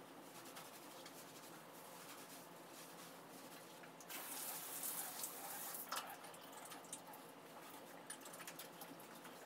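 Faint water spraying from a handheld shower head for about two seconds, starting about four seconds in. Light pattering and ticking of water and wet paws on the shower floor come before and after it.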